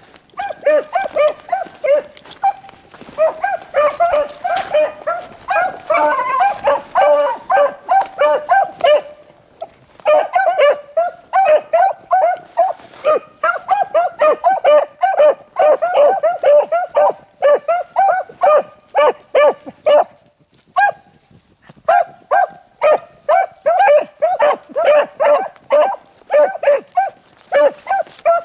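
Pack of beagles baying while running a rabbit's track: rapid, steady barking from several dogs, overlapping most thickly in the first third, with a brief pause about twenty seconds in.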